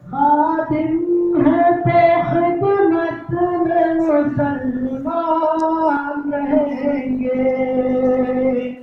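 A sung tarana: one continuous vocal phrase of held, gliding notes that begins at the start and dies away near the end.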